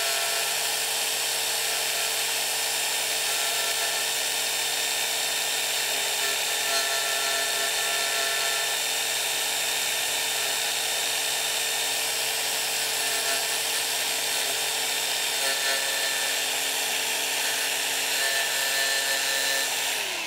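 Angle grinder with a 50-grit sanding disc running steadily while grinding away the back cut of MDF crown moulding to cope it: a constant motor whine under an abrasive grinding hiss. Right at the end the motor starts to spin down.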